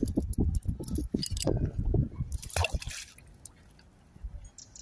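A fishing magnet on a rope knocks and scrapes on a concrete edge, then drops into canal water with a splash about two and a half seconds in.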